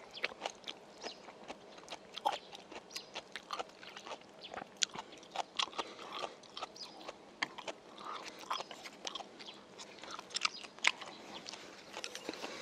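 Close-up chewing of grilled white croaker: a steady run of irregular crisp clicks and wet smacks from the mouth.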